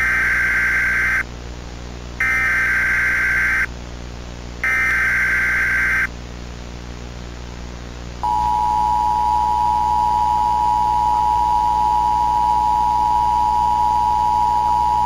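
Emergency Alert System tones: three short raspy data bursts of the SAME header, evenly spaced, then from about eight seconds in the long, steady two-tone attention signal, all over a low hum.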